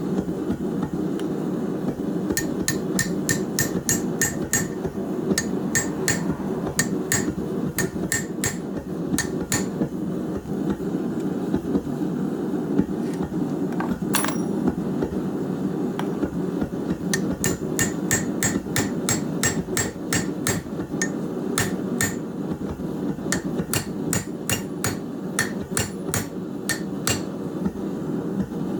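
Blacksmith's hand hammer striking steel on an anvil in quick runs of sharp blows, about three a second, with a pause of several seconds in the middle broken by a single blow. A steady low rush runs underneath.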